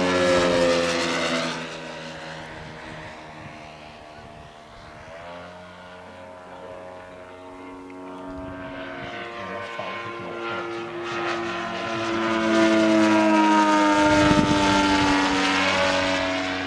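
Propeller-driven radio-controlled model airplanes flying past. The motor is loud near the start with its pitch dropping as the plane goes by, then fainter. From about twelve seconds in it builds up again and falls in pitch on a second pass.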